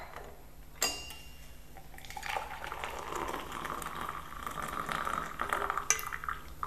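Hot herbal decoction poured from a saucepan through a strainer: a metal clink about a second in, then a trickle of liquid lasting about four seconds, with small clinks of metal near the end.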